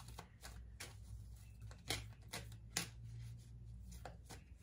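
Tarot cards being handled and shuffled: a string of light, irregular card snaps and taps, with two louder ones about two and three seconds in, over a faint steady low hum.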